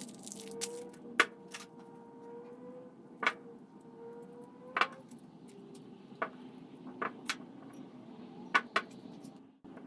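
Scattered sharp metallic taps and clinks, about eight at irregular intervals, over a faint steady hum.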